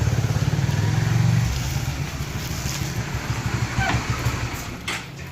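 A vehicle engine running with a steady low pulsing. It is loudest for the first second and a half, then fades gradually, with a couple of short clicks near the end.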